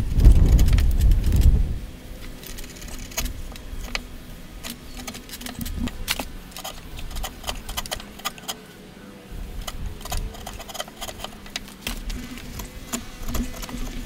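Wood chisel paring end grain by hand inside a joint cavity: many short, crisp clicks and crackles as fibres are sliced and shavings break away. A heavy low rumble fills the first two seconds or so, and a faint steady hum runs underneath.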